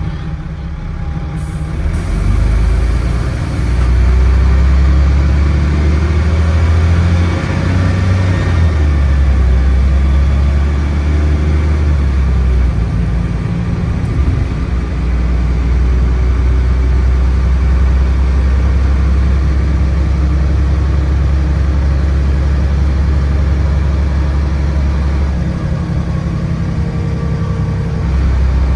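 Dennis Trident double-decker bus engine heard from inside the saloon, pulling away from a stop and revving loud. The Voith automatic gearbox changes up several times, each change marked by a brief dip and shift in the drone, after a short hiss of air about two seconds in as the brakes release.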